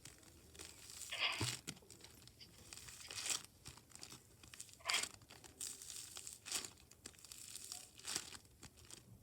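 Slime being squeezed and worked by hand, making a run of small irregular clicks and pops with louder squishes about every one and a half seconds.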